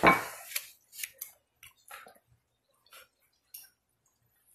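A brief louder sound right at the start, then a handful of faint, scattered clicks and smacks of a person chewing a mouthful of food.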